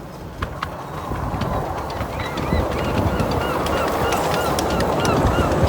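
Miniature railway train running with a low rumble and clicks from the rail joints, getting louder as it comes closer. From about two seconds in, a sharp squeak repeats evenly about three times a second.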